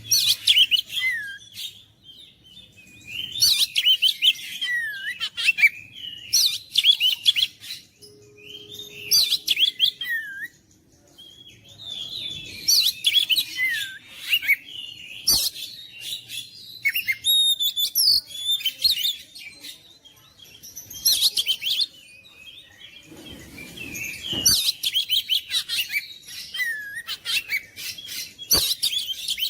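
Oriental magpie-robin (kacer) singing: phrases of rapid, varied whistles and chirps, each a second or two long, broken by short pauses.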